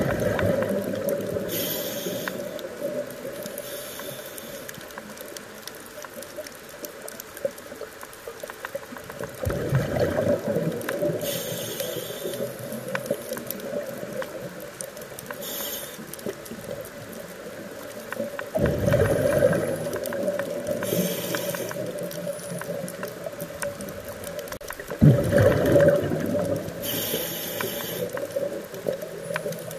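Scuba diver breathing through a regulator underwater: short hissing inhalations alternate with louder, low bubbling exhalations, a full breath about every eight or nine seconds.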